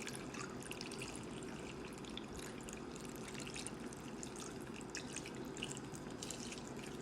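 Vegetable broth being poured into a pan of collard greens: a faint trickle with many small splashes and drips.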